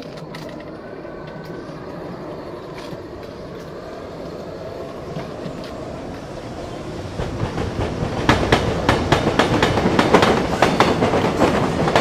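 Ride-on garden railway train rolling along its track, its wheels rumbling and clicking on the rails and growing louder as it approaches, with rapid clacking from about eight seconds in as it passes close by.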